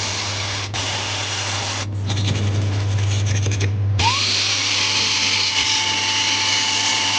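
A small handheld power tool running with a steady whir. Its sound changes for about two seconds in the middle and picks up again about four seconds in.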